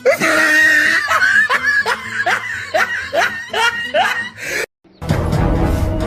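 A rapid string of laughs over a music track, about two or three rising 'ha's a second, cut off suddenly about four and a half seconds in. After a brief silence a sustained chord of steady tones over a low rumble follows.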